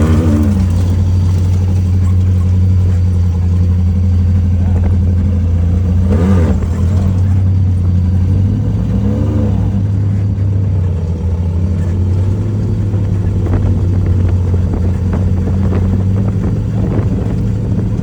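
Off-road race vehicle's engine running steadily at speed, a constant low drone that eases a little about eight and a half seconds in.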